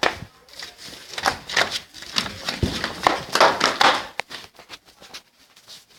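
Footsteps: a quick, irregular run of taps and knocks that dies down about four seconds in.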